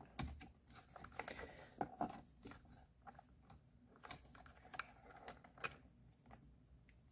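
Faint, irregular plastic clicks and rubbing as the wiring harness and its connectors are worked loose behind a C7 Corvette steering wheel.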